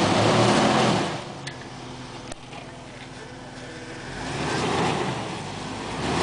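Jeep Wrangler Rubicon's engine crawling the vehicle up a rocky hill climb, swelling up in two pushes of throttle, one at the start and one about four seconds in, with steadier low running between. A couple of sharp knocks a second or two in.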